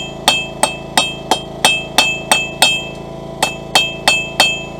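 Blacksmith's hammer striking a punch on hot steel about thirteen times, roughly three blows a second with a short pause near the end. Each metal-on-metal strike rings. The blows are driving out a punched plug that is stuck because the hole is not quite all the way through.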